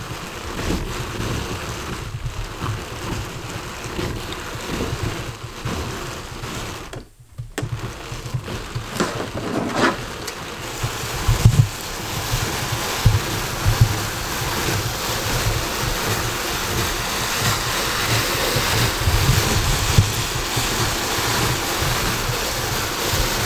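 Louet XL drum carder being hand-cranked, its wire-toothed drums combing alpaca fiber while a small brush packs the fiber onto the big drum: a steady rushing hiss with a low rumble. It breaks off briefly about seven seconds in.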